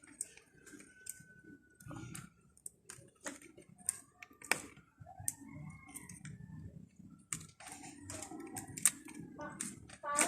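Irregular sharp clicks and crackles of dry thatching leaves being handled and worked into a leaf roof to patch its holes.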